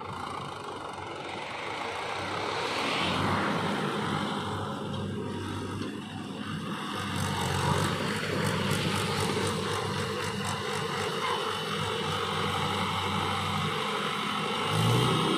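Swaraj tractor's diesel engine running steadily as it hauls a loaded trailer of earth, growing louder as it draws near, with a brief rise in revs near the end.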